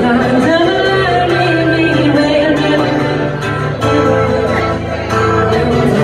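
A woman singing a held, flowing melody over her own strummed acoustic guitar.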